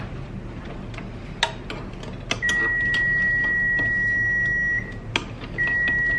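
A kitchen appliance's electronic beeper sounding a long, steady high beep of about two and a half seconds, then a second long beep about a second later. A few sharp knocks of a spatula against the steel mixing bowl come between.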